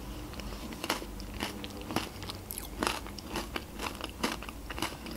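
Close-miked eating sounds as a spoonful of yogurt is chewed: a string of sharp wet clicks and crunches from the mouth, roughly every half second to second.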